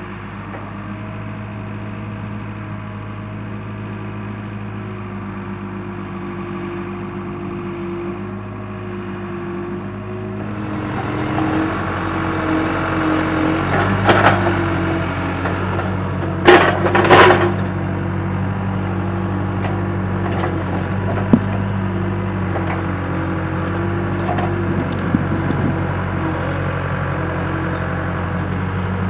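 Skid steer loader engine running steadily, picking up about a third of the way through as it takes on work, with loud cracking and snapping about halfway through and a few smaller cracks after.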